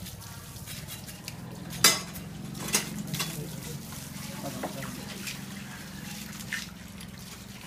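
Knife work on a wild boar carcass: sharp metallic clinks and knocks, the loudest about two seconds in and a couple more soon after, over a steady low hum.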